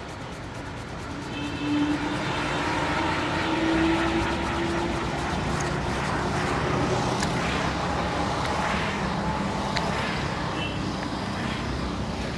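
Road traffic, with a motor vehicle passing close by; the sound gets louder about a second and a half in and stays up.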